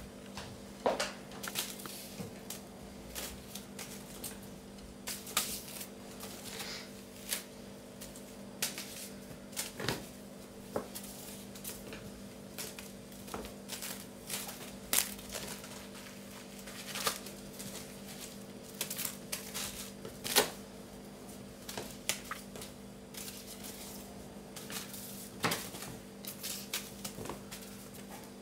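Burmese kittens playing on a tiled floor: irregular clicks, taps and scrabbles of claws and paws on the tiles as they pounce on a feather wand toy, over a steady low hum.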